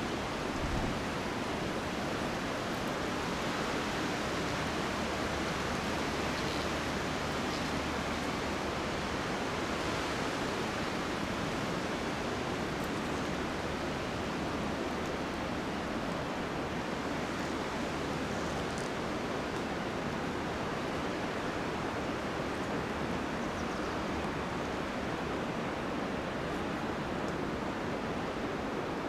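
Steady rush of wind through tall Monterey pine trees.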